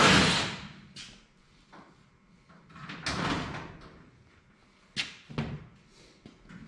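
A power tool stops and fades out in the first half second, then scattered knocks and clunks of handling the car's sheet body panels and a cordless drill, the strongest about five seconds in.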